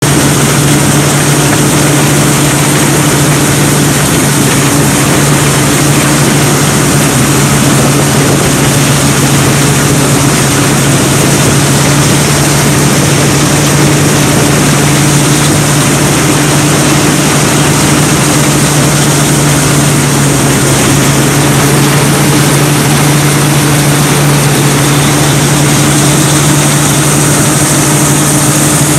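Rice combine harvester running steadily at working speed while cutting and threshing rice, heard loud and close from on board: a constant low engine hum with a steady high whine over it.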